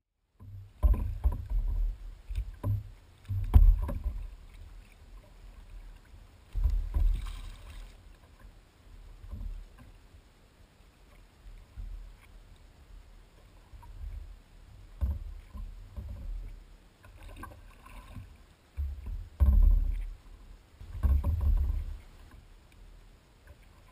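Water slapping and sloshing against a sea kayak's hull, heard as uneven low knocks and rumbles in bursts, several of them loud.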